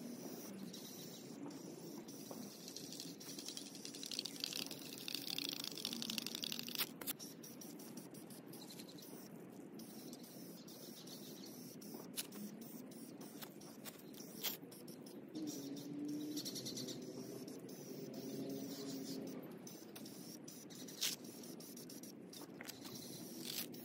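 Faint spring outdoor ambience of birds chirping and frogs croaking, with the hiss of an aerosol spray-paint can during the first several seconds and a few sharp clicks.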